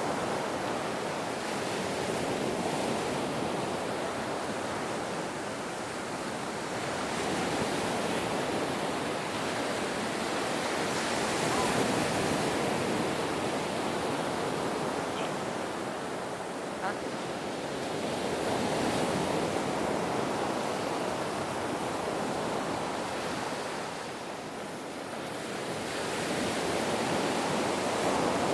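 Ocean surf: a continuous rush of breaking waves that slowly swells and eases every several seconds.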